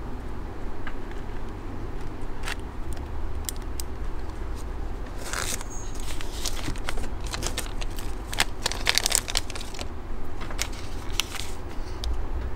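Small clicks, taps and crinkling from hands handling a Sony ZV-1 compact camera at its open battery and memory-card compartment, with an SD card and the camera battery, mostly in the second half. A steady low hum sits underneath.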